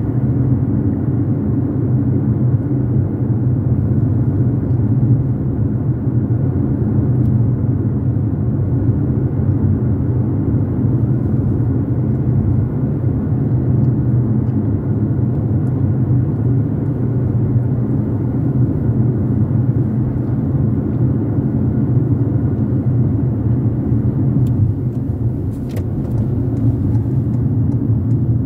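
Steady low rumble of a car driving along a city street, its engine and tyre noise heard from inside the cabin.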